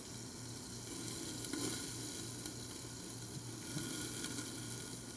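Chicken browning in hot oil in a frying pan, a steady sizzle.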